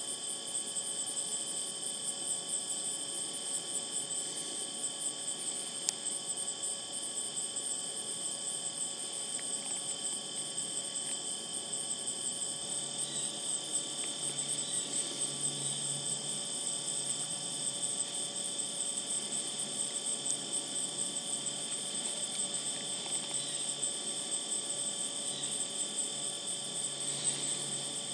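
Steady chorus of crickets and other late-summer insects, several unbroken high trills layered together. A faint low drone comes in about halfway through.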